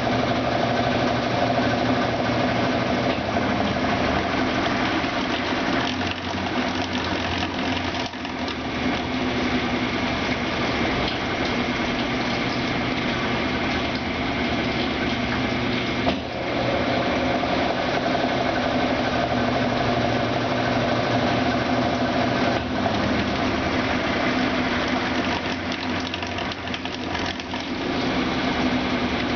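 Brastemp Ative BWL11AR top-loading washing machine running, its motor and drum giving a steady whirring hum with a few brief dips in level.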